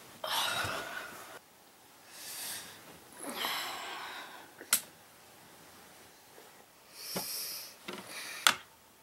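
Bedding and fabric rustling in several soft swishes as someone settles into bed, with two sharp clicks, the louder one near the end.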